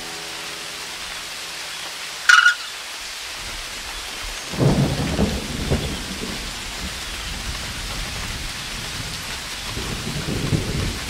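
A ringing guitar chord fades out, with one short sharp sound about two seconds in. Then steady rain and rolling thunder take over, the rumble swelling about four and a half seconds in and again near the end.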